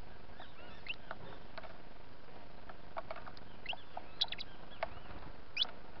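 Saffron finches at a feeder board: scattered short, high chirps, the loudest a little past four seconds and near the end, among light ticks of beaks pecking at corn flour.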